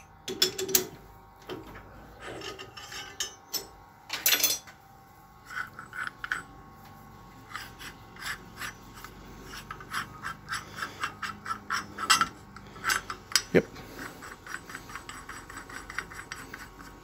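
Hand-worked metal rasping: short scraping strokes of metal on metal with a few louder knocks, settling into an even run of about two to three strokes a second in the second half.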